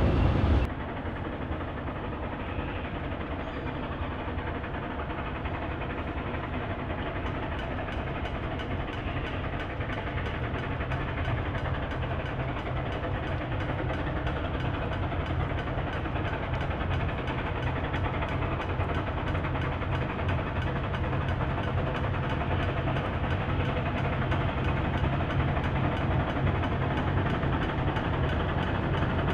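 Steam train running steadily: a continuous rumble with a fast, even beat. The level drops a little less than a second in and then holds.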